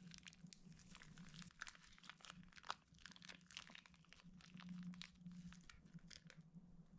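Faint, irregular crackling and small sticky clicks from handling slime and its plastic, with one sharper click midway, over a low steady hum.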